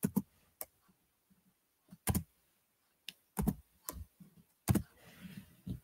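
Typing on a computer keyboard: about a dozen uneven keystrokes and taps, spaced irregularly with short pauses between them.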